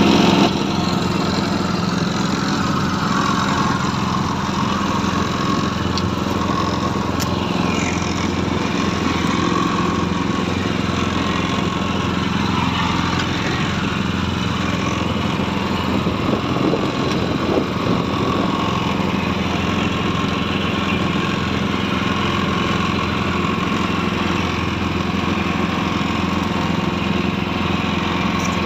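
Small petrol engine driving a boat-mounted net hauler, running steadily at constant speed as the gillnet is wound in.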